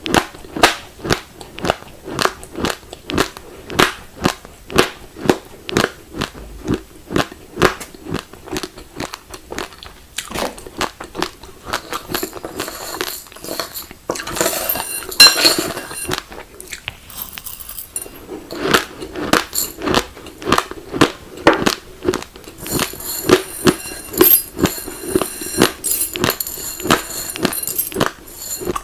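Raw glutinous rice grains being chewed close to the microphone: crisp, even crunches, about two a second. Stretches of higher crackle come through twice.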